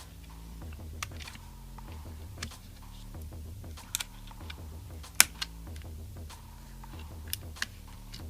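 Scattered sharp clicks and taps of small parts and tools being handled inside an opened 15-inch MacBook Pro Retina as its logic board is fitted back in. There are about seven clicks, irregularly spaced, and the loudest comes a little past halfway.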